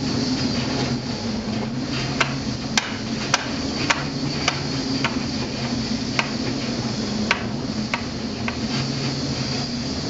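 Steady drone of a ship's engine and rushing sea noise, heard from inside the wheelhouse in heavy weather. About a dozen sharp clicks and knocks are scattered through the middle stretch.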